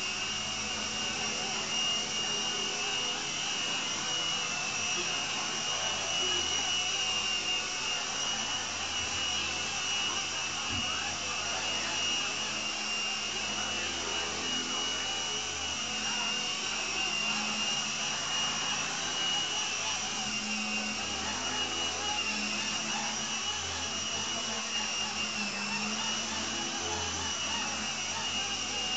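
Small electric RC helicopter with a fixed-pitch Lama V4 main rotor and a tail rotor, running steadily in flight: a high motor whine that wavers slightly in pitch over the hum and whoosh of the spinning rotors.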